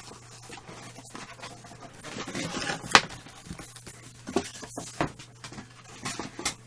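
Packaging and record items being handled: rustling and scraping, with a few sharp knocks and clicks, the loudest about three seconds in.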